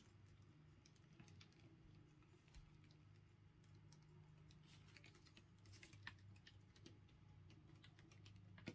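Near silence: room tone with a faint steady low hum and a few faint, scattered ticks.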